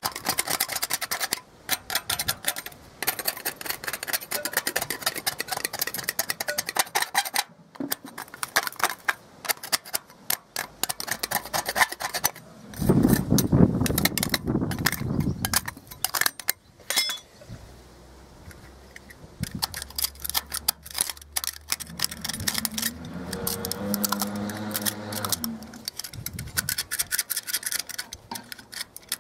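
Steel paint scraper rasping loose rust and flaking old paint off a wrought iron gate rail in runs of rapid short strokes with brief pauses. About two-thirds in, a low droning tone sounds underneath for several seconds.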